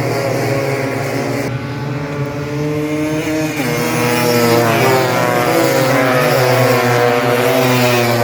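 Several tuned 180cc Vespa two-stroke scooter engines racing, with overlapping engine notes rising and falling as the riders accelerate and shift.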